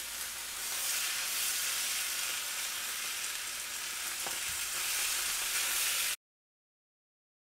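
Pork fried rice sizzling in a hot pan while a silicone spatula stirs and scrapes through it. The sizzle cuts off abruptly into dead silence about six seconds in.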